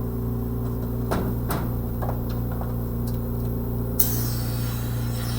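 A steady low hum with a few sharp clicks of metal instruments about a second in. About four seconds in, a dental suction switches on with a sudden, steady airy hiss.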